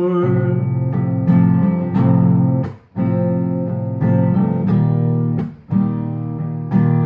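Acoustic guitar strumming chords. The sound is cut short twice, briefly, about three seconds in and again past the five-second mark.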